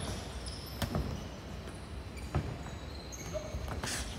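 Boxing sparring: several sharp thuds of gloved punches and footwork on the ring canvas, the loudest near the end, with short high squeaks of athletic shoes.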